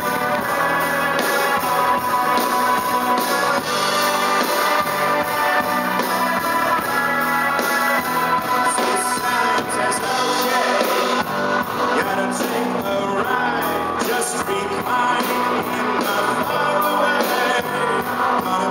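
Live rock band playing loudly, with electric guitars and drums, heard from within the crowd.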